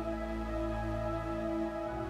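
Background music: soft, sustained tones held steadily, with the notes changing near the end.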